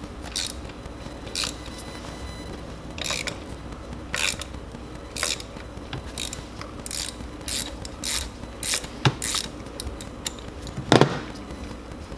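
Hand ratchet clicking in short, irregular strokes as spark plugs and coil bolts are worked on the engine, with a louder knock near the end.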